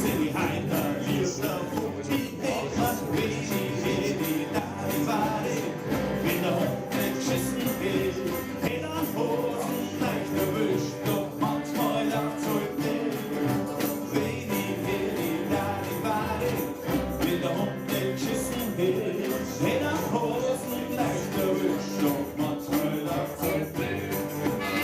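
Music with jingle bells.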